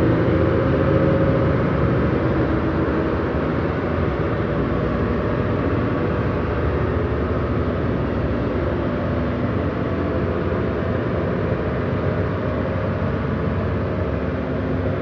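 Sci-fi alien spaceship takeoff sound effect: a continuous, dense hum of many held low tones over a rushing noise, easing off slightly in loudness.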